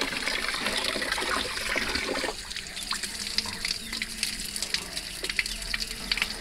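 Water running from an outdoor tap and splashing as cassava roots are rubbed clean by hand under the stream.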